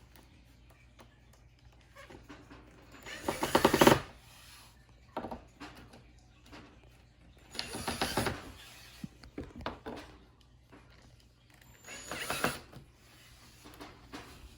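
Screwdriver driving screws into the metal parts of a bird cage's roof, heard as three bursts of rapid mechanical clicking, about a second each.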